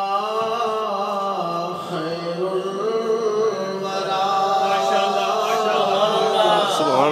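A man chanting a naat, an Urdu devotional song in praise of the Prophet, into a microphone, drawing out long held notes whose pitch slowly wavers. It grows a little louder in the second half.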